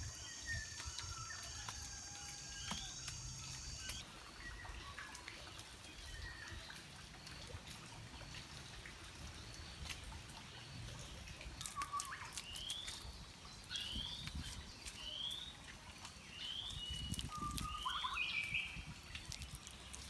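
Handfuls of wet clay slapped and pressed onto a mud furnace wall, giving soft low thumps. A bird repeats short rising chirps, about one a second, through the second half. A steady high whine at the start stops about four seconds in.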